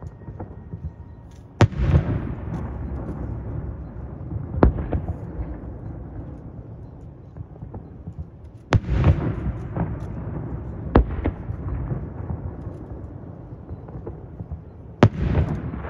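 Aerial fireworks shells bursting overhead. There are five sharp booms a few seconds apart, and each one trails off in a long rumbling echo.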